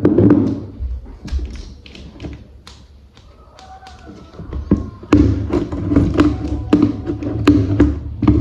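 Hard plastic toy parts clicking and tapping as they are handled and fitted together, in a string of short, sharp knocks.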